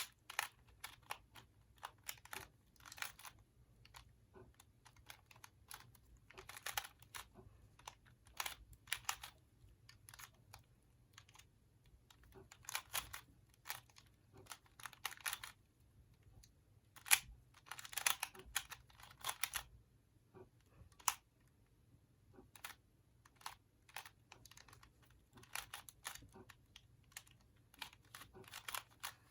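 A GAN Pyraminx M, a magnetic speed puzzle, being twisted quickly in a timed solve: irregular bursts of small plastic clicks and clacks as its layers and tips turn, with short pauses between bursts.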